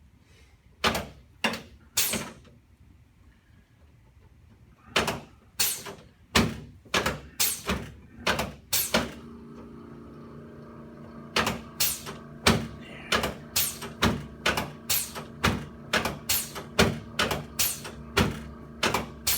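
A run of sharp clacks: a few scattered ones at first, then a steady run of about two a second. A steady hum comes in about halfway through.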